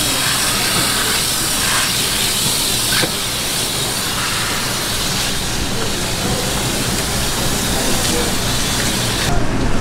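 Water spraying from a hose tap onto a flatfish and the wet market floor as the fish is rinsed by hand, a steady hiss that drops away just before the end.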